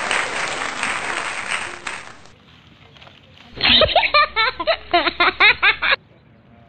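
Applause fading out over the first two seconds, then about three and a half seconds in a burst of laughter, a rapid run of ha-ha pulses that cuts off suddenly about six seconds in.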